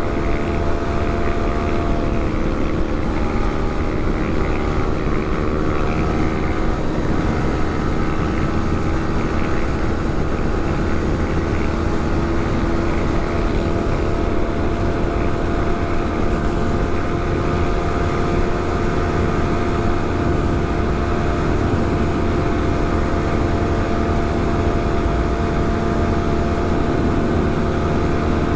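Motorcycle engine running at a steady cruising pace, its pitch holding nearly constant, with a strong low rumble underneath.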